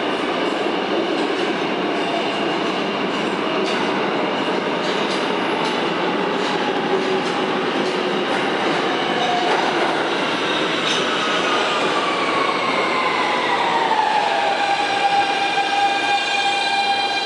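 R160B subway train with Siemens propulsion pulling into the station: a steady rumble of wheels on rail, while the traction motors' whine falls in pitch as the train brakes, settling into a steady tone near the end.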